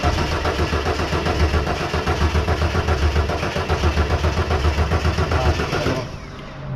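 Starter cranking the fuel-injected 4.1-litre crossflow inline-six of a 1983 Ford XE Falcon, throttle held open and starting fluid sprayed into the intake. It turns over in a steady, even pulse for about six seconds, then stops without the engine catching: a no-start the owners suspect is a fuel problem, as it is getting spark.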